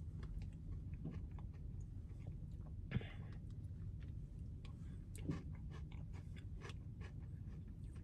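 Faint mouth sounds of chewing a spoonful of frozen custard with graham cracker crumbs: small wet clicks, with a couple of soft knocks about three and five seconds in, over a low steady rumble.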